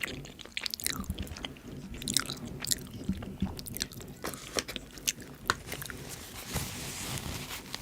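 Close-miked mouth sounds of a person chewing and eating rice-skin noodles (mi pi) in sesame-paste sauce: irregular clicks, with a brief hissing sound near the end.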